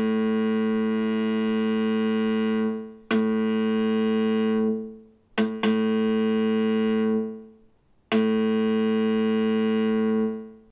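Simple touch-sensitive digital instrument sounding one bright synthesized tone, rich in overtones. The note is struck anew with a sharp attack several times, twice in quick succession near the middle, and each time it holds for a couple of seconds and then fades away.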